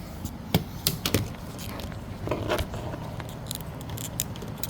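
Windshield wiper blade's plastic pinch-and-pull connector being worked by hand on the wiper arm: a series of sharp plastic clicks and light rattling.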